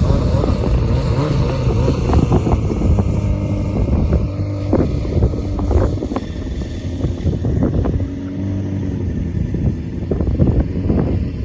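An engine running steadily at a low pitch, with wind buffeting the microphone and scattered knocks.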